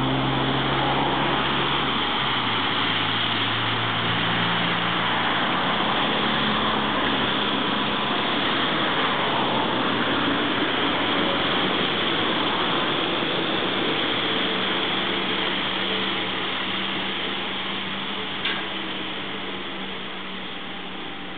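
Trolleybus approaching and passing on a wet street, a steady hiss of tyres and traffic with a low hum, easing off in the last few seconds. A single sharp click sounds near the end as it swings round.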